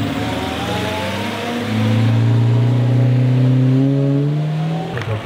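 Pre-war car's engine pulling away under acceleration. Its note dips briefly about a second and a half in, then rises steadily in pitch and grows louder, and drops off near the end.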